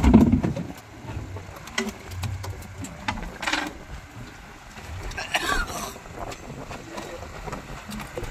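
A heavy thump as an eel drops off the hook into a boat's fish hold, followed by scattered light knocks and scrapes.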